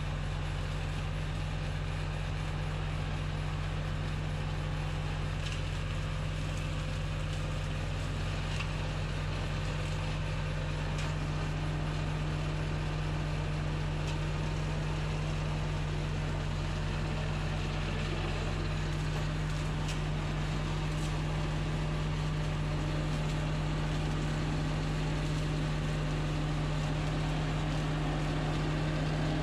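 Old Lamborghini tractor's engine running steadily while driving a rear-mounted flail mower, its spinning hammers cutting through grass, brambles and branches. The sound grows slightly louder as the tractor reverses closer.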